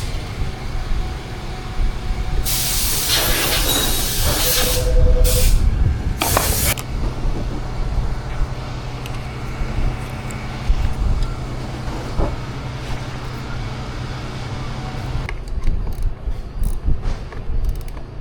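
A steady low machine hum with three loud hissing blasts, like air released under pressure, in the first seven seconds; the hum stops about fifteen seconds in.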